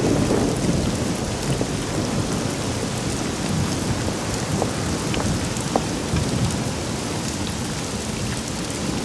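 Steady rain falling, with a low rumble of thunder that dies away over the first second; a few louder drops tick through it.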